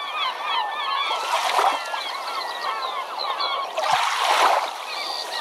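A flock of birds calling, many short overlapping calls one after another, with two brief rushes of noise, about a second and a half in and about four seconds in.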